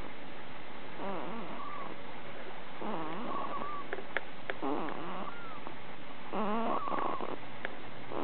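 One-month-old baby snoring in her sleep: four wavering, pitched snores, one every second and a half to two seconds. A few short clicks fall between them.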